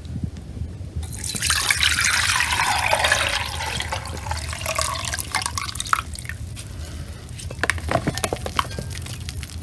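Pomegranate juice poured from a glass bowl through a fine-mesh metal strainer into a metal pot. The pour starts about a second in and splashes steadily for about four seconds, then gives way to dripping and a few light clicks.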